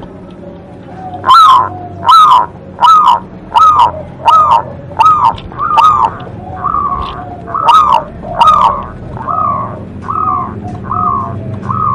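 Zebra dove (perkutut) singing: a regular run of about fifteen loud, pitched notes, roughly one and a half a second, that begins about a second in and grows softer toward the end.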